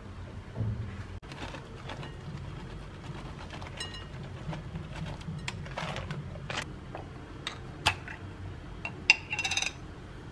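Scattered light clicks and clinks of food prep on glassware: small pieces and utensils tapping glass bowls and jars. The loudest is a sharp, ringing clink about nine seconds in. A steady low hum runs underneath.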